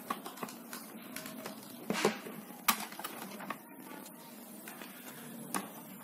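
Hands handling an appliance motor's wiring while a faulty lead is being undone: light rustling with a few sharp clicks and taps, the clearest about two and a half seconds in, over a faint steady hiss.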